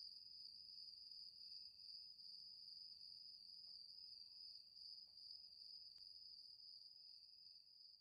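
Faint crickets trilling steadily, with a lower insect chirp coming and going.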